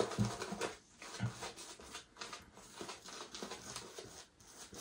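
Soft synthetic shaving brush being worked through shaving soap lather: repeated wet swishing brush strokes with a few dull knocks near the start.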